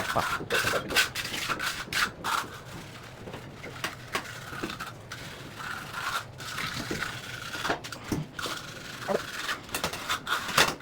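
Hand tool scraping and rubbing on a concrete floor: quick rhythmic strokes for about the first two seconds, then quieter, slower scraping with occasional single strokes.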